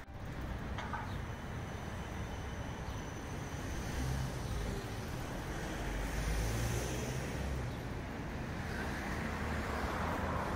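City street traffic: cars and a tram going by, a steady roar with a low rumble. A faint thin high whine runs through the first half.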